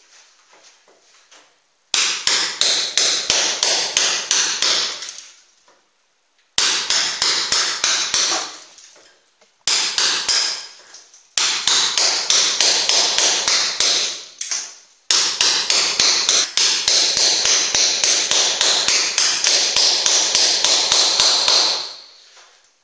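Hand hammer striking a steel chisel held against a plastered wall, chipping out a hole. The blows begin about two seconds in and come in five quick runs of about four strikes a second, with brief pauses between runs.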